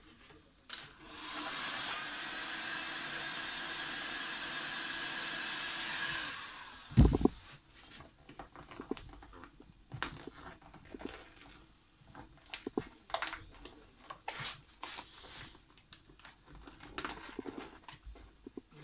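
A handheld hot-air blower runs steadily for about five seconds, heating vinyl wrap film so it can be stretched over a motorcycle fairing panel, then cuts off. One loud thump follows, then scattered light taps and rustles as hands press and smooth the film.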